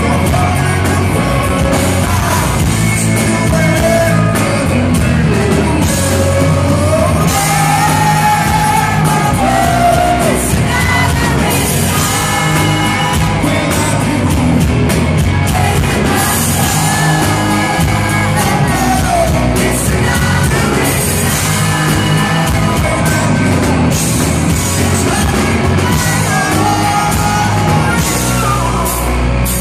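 Live rock band playing loud, with a male lead singer over electric guitars, bass and drums, heard from among the audience in a large hall. The vocal melody weaves up and down over a steady band sound.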